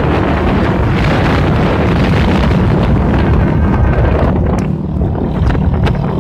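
Loud wind buffeting the microphone of a moving vehicle, over the steady low drone of its engine. The rumble eases a little about four and a half seconds in.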